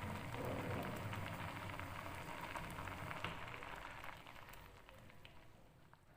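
A pot of turnip and orange juice mixture bubbling and crackling, coming off the boil after the heat is turned off; the bubbling dies away over the last couple of seconds.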